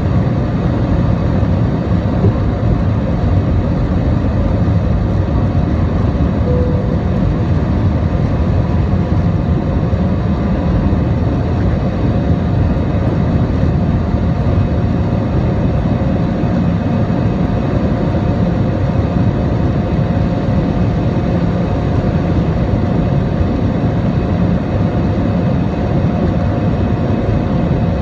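Airbus A320-216 cabin noise over the wing during takeoff and initial climb: its CFM56-5B turbofans are running at high power, heard as a steady low rush with a faint constant whine over it.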